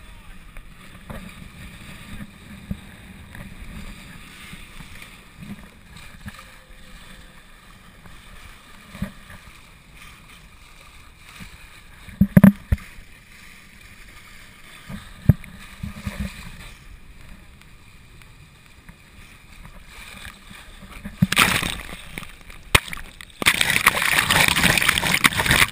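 Wind and water rushing past a small sailing dinghy heard through a hull-mounted action camera, with a few sharp knocks. Near the end, loud rushing and splashing water as spray and waves wash over the camera.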